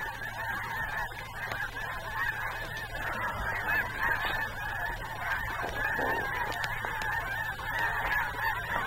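A large flock of snow geese honking all at once: a dense, unbroken chorus of many overlapping high calls.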